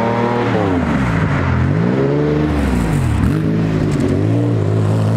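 Air-cooled Porsche 911 flat-six accelerating past, its engine note dropping and rising again several times as it revs, then holding steady near the end.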